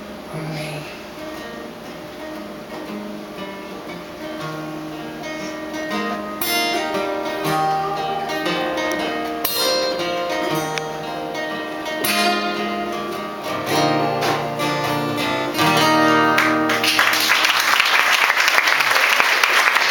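Two acoustic guitars play the song's instrumental ending, building gradually in loudness. About three seconds before the end, audience applause breaks out as the song finishes.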